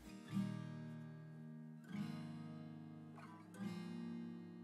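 Soft background music on acoustic guitar, a new chord strummed about every one and a half seconds and left to ring.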